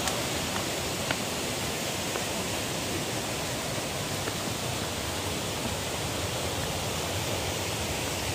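Steady rushing of a rocky stream tumbling over stones.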